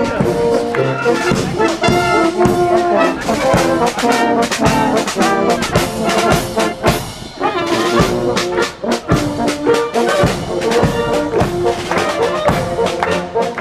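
Brass band playing, with the stepping melody carried over a regular beat.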